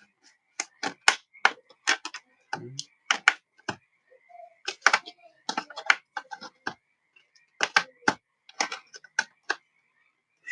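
Irregular sharp plastic clicks and taps as hands work the bottom case of an Asus TUF Gaming F15 laptop loose, its plastic clips releasing.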